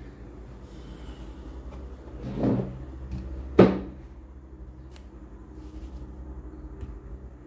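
Handling noise at a wooden desk: a sliding rub swells about two and a half seconds in, then a single sharp knock a second later, the loudest sound, over a faint steady low hum.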